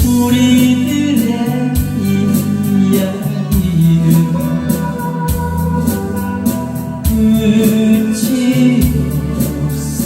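A singer performing a Korean popular song over a band or backing-track accompaniment with guitar, held chords and a steady beat.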